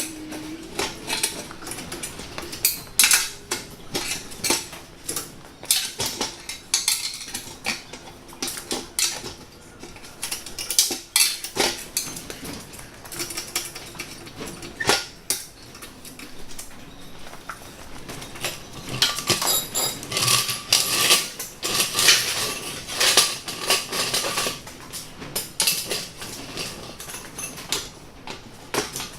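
Repeated metallic clanks and clatter of steel parts being knocked and handled, busiest from about nineteen to twenty-four seconds in, where the strikes ring.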